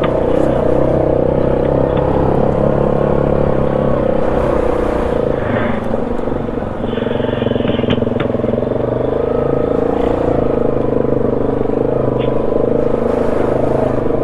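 ATV engine running at a steady pitch as the machine rides along a trail, with a brief dip in level about two thirds of the way through.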